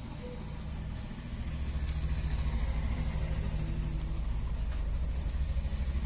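A steady low rumble that grows louder about a second and a half in.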